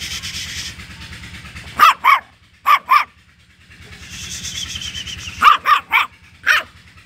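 A two-month-old puppy barking: eight short, high-pitched barks in two runs of four, with a pause of about two seconds between them.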